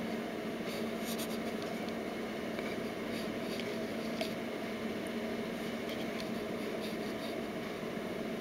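A steady low hum, with faint light ticks and scratches now and then.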